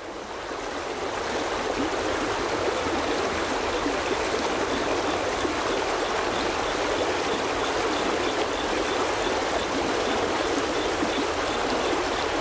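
Steady rush of running water like a stream, fading in over the first couple of seconds.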